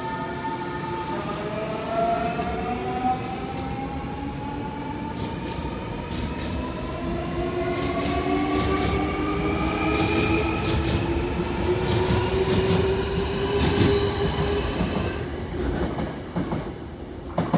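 Nankai electric train pulling out and accelerating, its inverter-driven traction motors whining in several tones that climb steadily in pitch. Wheels clack over rail joints under a low rumble.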